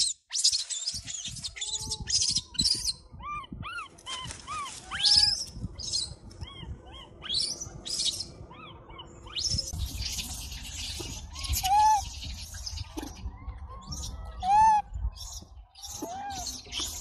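Baby macaque crying: a string of short high-pitched calls, each rising and falling in pitch, mixed with harsher screeches. These are the distress calls of an infant separated from its mother.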